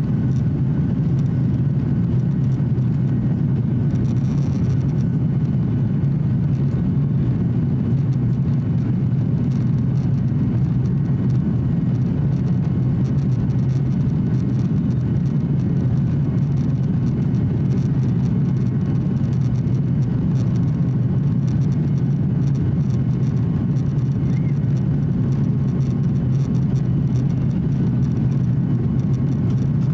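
Boeing 737-800's cabin noise during the climb after takeoff: a steady, low rumble of its CFM56-7B engines and airflow, heard inside the cabin beside the wing.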